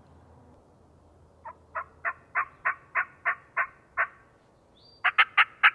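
A hunter's diaphragm mouth call imitating a hen turkey: a run of nine evenly spaced yelps, then, after a short pause, a quick burst of four sharp, louder cuts.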